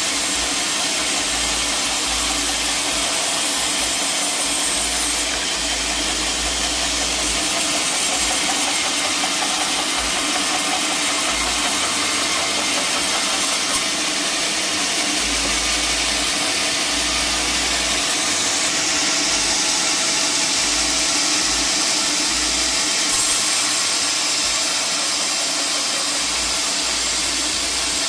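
Sawmill saw running steadily while cutting a log, a continuous mechanical drone with a hiss.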